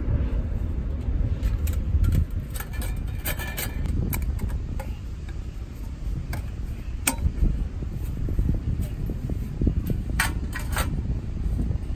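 Thin metal panels of a folding card-style wood-burning stove clicking and clinking as they are handled and slotted together, with a metal clink or two about ten seconds in as the stove is set on a metal tray. A steady low rumble runs underneath.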